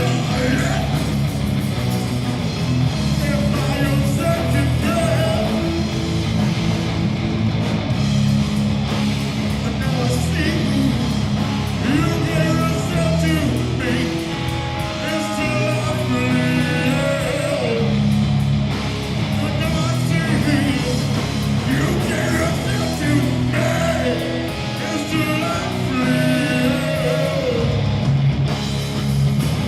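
Live heavy rock band playing: distorted electric guitar, bass and drums, loud and continuous.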